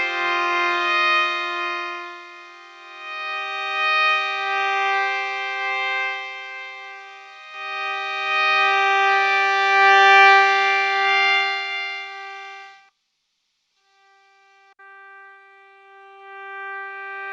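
Digital synthesizer playing held, sustained notes through a Strymon Iridium amp and cab simulator pedal, swelling and fading. The sound cuts off suddenly about thirteen seconds in, then a held note comes back and grows louder near the end.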